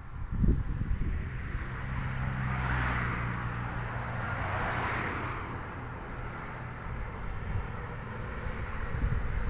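A motor vehicle running with a steady low engine hum, with rushing tyre noise swelling up twice as traffic passes.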